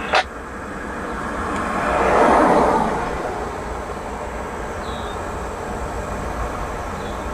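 Steady low rumble of road traffic, with one vehicle passing that grows louder and fades about two to three seconds in, after a short knock at the very start.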